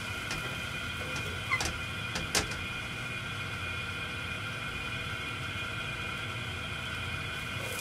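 Steady whirring hum of a kitchen stove's exhaust fan, with two short clicks about a second and a half and two and a half seconds in, the second louder.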